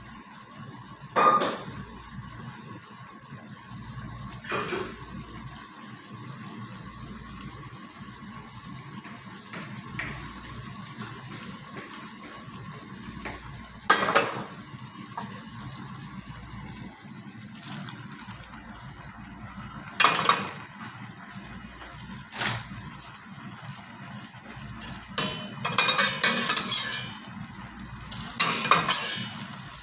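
Tomato and minced-chicken sauce simmering in a wok, a steady low hiss with a few sharp clicks spread through, and a run of clattering against the pan near the end.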